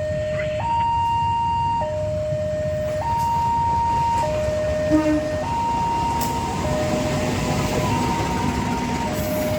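A two-tone hi-lo siren alternating evenly between a high and a low note, each held a little over a second, over a steady low rumble.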